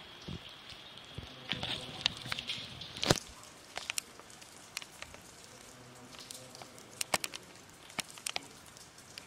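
Quiet outdoor ambience with scattered sharp clicks and taps, the loudest about three seconds in and a quick cluster around seven seconds, with a faint murmur near the start.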